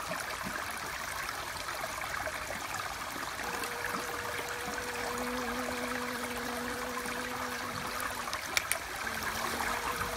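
Steady rushing noise like running water, with a honeybee's wing buzz humming in and out as a low steady drone. Two short clicks sound a little after eight seconds in.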